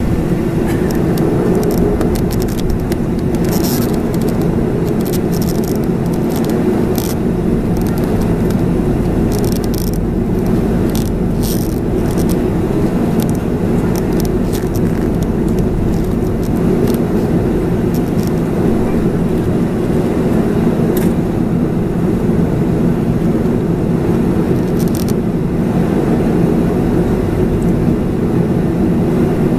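Cabin noise of a Boeing 737-400 taxiing onto the runway: its CFM56-3 turbofans at idle give a steady hum with a few held low tones, heard inside the cabin over the wing. Scattered brief clicks and rattles come and go over it.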